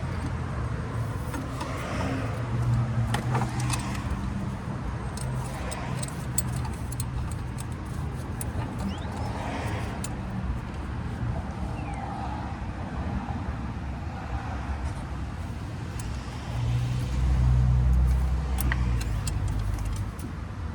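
Scattered metal clicks of hand-tool work as a C-clamp is set and screwed against a brake caliper piston, over the steady low hum of a vehicle engine that grows louder for a couple of seconds near the end.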